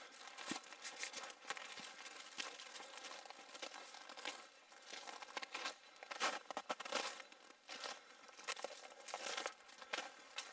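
Footsteps crunching on packed snow, an uneven run of crisp crunches.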